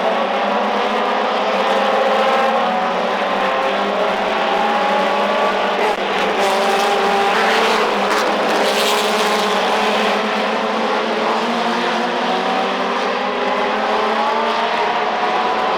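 Several Procar 4000 race cars with inline six-cylinder engines running hard at once, their engine notes overlapping and rising steadily in pitch as they accelerate, with a short rush of noise about halfway through.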